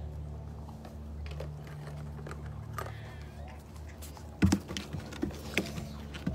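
A steady low background hum, then from about four seconds in a cluster of sharp knocks and rubbing right at the microphone as the recording phone is grabbed and handled.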